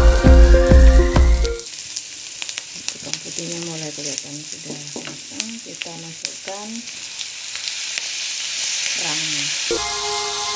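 Background music with a strong beat for the first second and a half, then onion, chilies and garlic sizzling in a hot wok, stirred with a wooden spatula that scrapes and taps. A run of short pitched calls sounds faintly behind the sizzle in the middle, and music comes back near the end.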